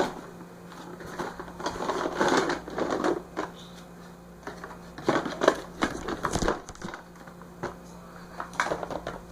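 Plastic packaging and Play-Doh tubs being handled: irregular crinkling and rustling with small clicks and knocks, in several short spells.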